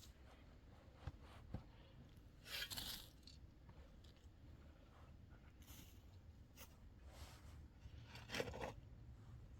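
Near silence broken by a few short, faint rustling and crunching sounds, the clearest about two and a half seconds in and again near the end.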